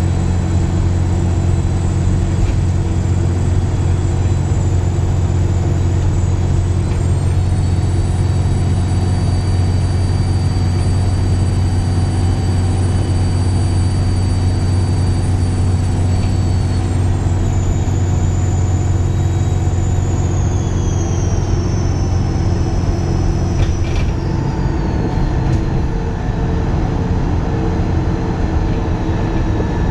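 Dennis Trident 2 double-decker's diesel engine running under way, with a loud, high-pitched turbo whistle over the low engine drone. The whistle climbs in pitch about a quarter of the way in, holds, then glides steadily down over the second half as the engine note drops.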